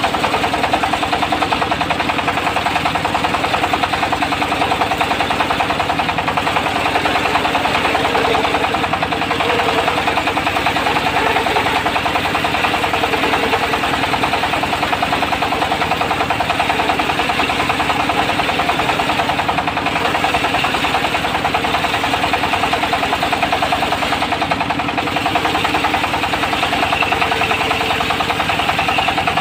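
Diesel engine of a mobile circular sawmill running steadily, with a rapid, even pulse.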